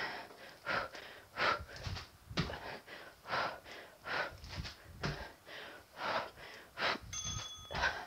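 A woman panting hard close to a clip-on microphone during prisoner pulse hops, a sharp breath every half second or so, with a dull thud of her sneakers landing on the floor mat about every two and a half seconds. A short beep sounds near the end.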